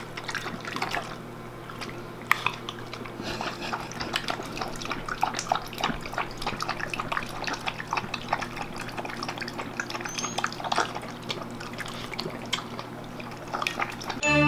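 Pembroke Welsh corgi lapping water from a ceramic bowl: an irregular run of quick wet laps and small splashes.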